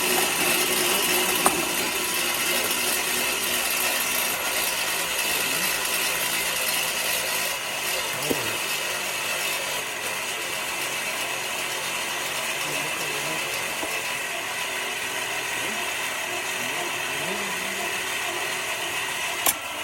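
Battery-powered electric motor of a homemade mini concrete mixer running steadily, turning the drum; it is switched on just before and gets slightly quieter as it runs.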